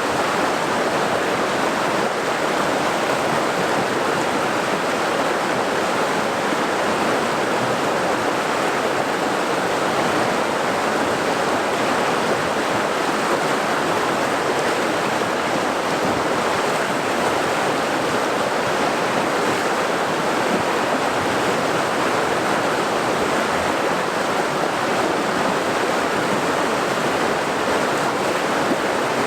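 Flowing water rushing steadily and without change.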